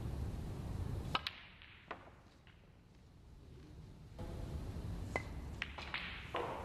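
Snooker balls clicking: the cue tip striking the cue ball and the balls knocking together, a couple of sharp clicks about a second in and a few more after five seconds, over a low hum of the hall.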